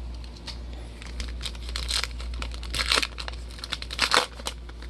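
Foil trading-card pack wrapper being torn open and crinkled, with crackling and several louder rips about two, three and four seconds in, over a steady low hum.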